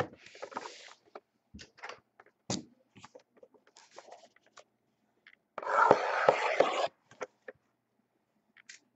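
Hands handling cardboard trading-card boxes on a table: scattered light taps and rustles, with a louder scraping of cardboard lasting about a second, around six seconds in.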